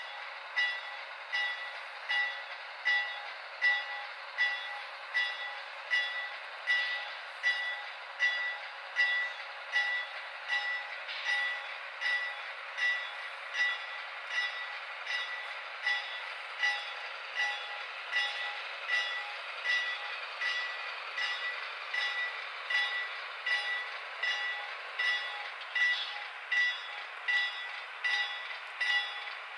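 Sound system of HO scale Union Pacific AC6000 model diesel locomotives: the locomotive bell rings steadily about once a second over a steady diesel engine sound, with no bass at all.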